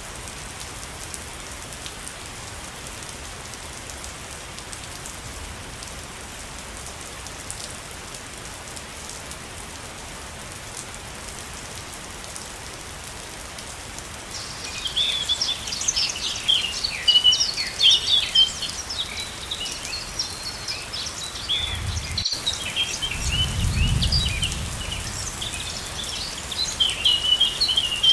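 Steady rushing of a waterfall throughout. About halfway through, a group of small birds starts chirping rapidly and keeps on, and these chirps are the loudest sound. A brief low rumble comes in near the three-quarter mark.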